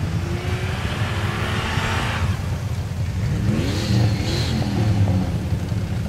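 Jeep Cherokee XJ engine revving under load as it climbs a steep, loose pea-stone hill. The revs rise about halfway through, and two stretches of hiss ride over it.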